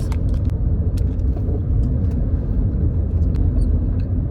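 Steady low rumble of a motor vehicle, with a few faint, short clicks over it.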